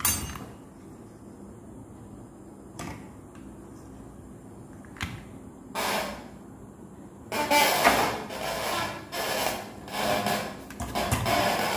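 Handling noise at a repair bench: a circuit board and tools being knocked and moved about on a glass-topped workbench, a sharp knock at the start and a couple of light taps, then, from about seven seconds in, several seconds of uneven scraping and clattering.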